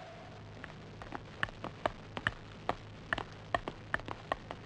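A run of light, sharp taps and clicks at an uneven pace, about fifteen in four seconds, over a faint steady hum.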